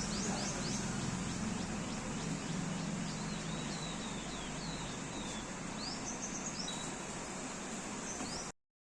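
Outdoor ambience of several birds chirping with many short rising calls and a few falling ones, over a steady high-pitched hiss. The sound cuts off abruptly near the end.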